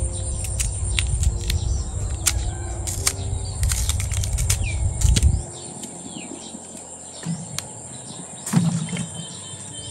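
Green bananas being peeled by hand over a bowl of water: a run of sharp clicks and snaps from the peel and wet fruit. Birds chirp and a steady high insect drone runs underneath, and a low rumble stops abruptly about halfway through.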